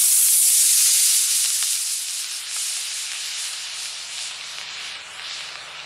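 Aerotech 24 mm E-6 Blue Thunder composite rocket motor burning with a loud, steady hiss just after ignition, slowly fading as the model climbs away.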